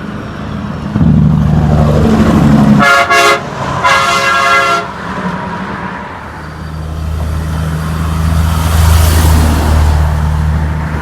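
Truck horn sounding two short blasts about three and four seconds in, with the low steady sound of heavy truck engines passing before and after.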